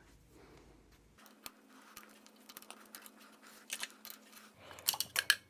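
Screwdriver tip clicking and scraping against a steel lock ring while prying it up and working it out of a lockout hub. The small sharp clicks are scattered, with a louder cluster near the end.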